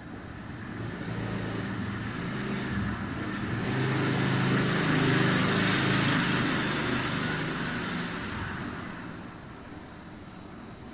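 A road vehicle passing by: its engine and road noise swell to a peak about halfway through, then fade away.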